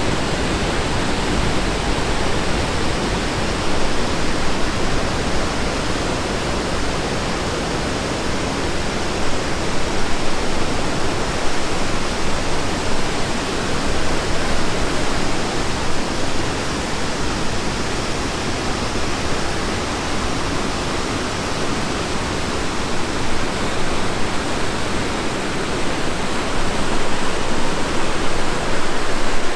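Rushing water of a waterfall or river rapids: a loud, steady rush that swells a little now and then.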